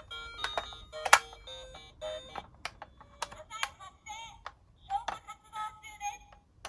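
Background music with sharp clicks and short wavering electronic tones.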